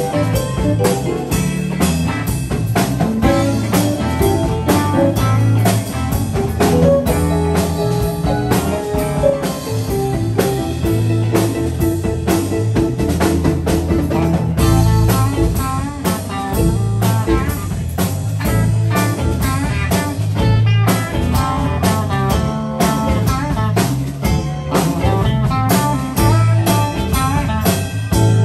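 Live electric blues band playing an instrumental stretch: electric guitars over a steady drum beat.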